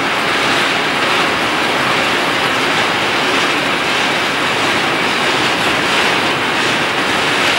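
Long freight train of open coal wagons rolling past: a steady, even noise of steel wheels running on the rails.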